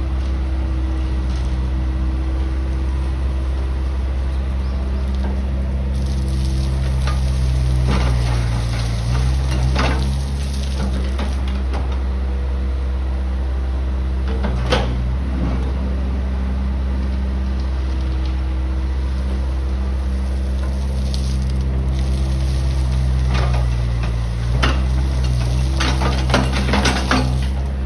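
Backhoe's diesel engine running steadily, its note sagging under hydraulic load twice as the bucket works. Scattered clanks and rattles of crushed stone come with it, most about a third of the way in and near the end.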